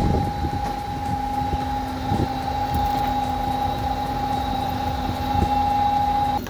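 A machine running with a steady high whine over a lower hum, with two brief knocks; the whine stops abruptly near the end.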